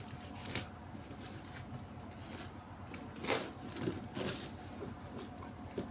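Handling of a parcel's packaging: a few short rustles and scrapes, spaced irregularly, over a steady low hum.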